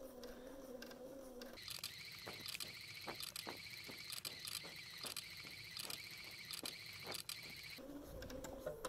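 Bernina 570 sewing machine stitching in free-motion mode: a steady motor whine with rapid needle strokes, starting a couple of seconds in and stopping shortly before the end. A faint steady hum comes before and after the stitching.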